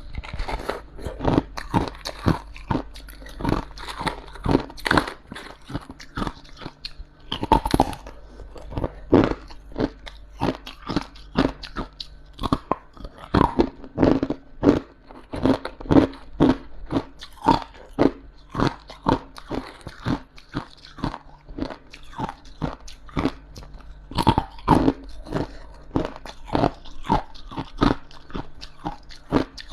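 Frost being bitten and chewed close to the microphone: a steady, irregular run of crisp crunches, two or three a second, over a faint low hum.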